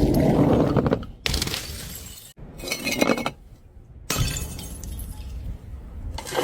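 Glass bottles smashing, four crashes in quick succession, each followed by shards tinkling and scattering as it dies away.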